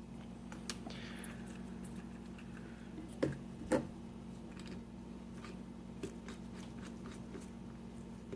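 Hands handling small objects on a desk: scattered light clicks and a brief rustle, with two louder taps a little after three seconds, over a steady low electrical hum.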